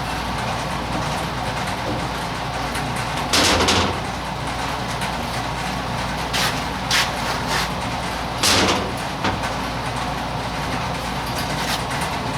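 Metal parts being handled and shifted: two longer scraping bursts and several short knocks, over a steady background hum.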